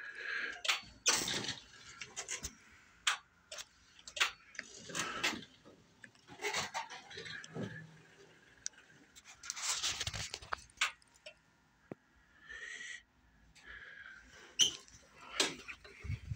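Handling noise: irregular clicks and short rustling bursts as a handheld phone is moved around and things nearby are brushed and touched.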